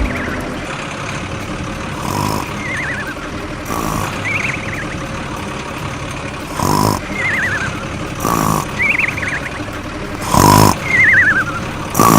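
A steady mechanical hum under a repeating pattern: short warbling whistles that slide down in pitch, alternating with short loud blasts, the loudest of them near the end.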